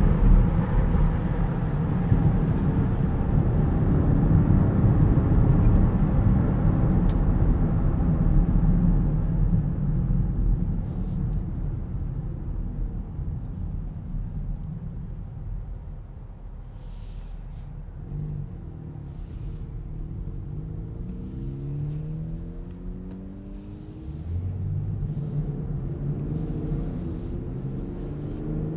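Cabin sound of a 2020 BMW X5 xDrive40i on the highway: steady tyre and road rumble that eases off partway through. In the second half its 3.0-litre turbocharged inline-six pulls the car back up to speed, its note rising several times before the rumble grows louder again.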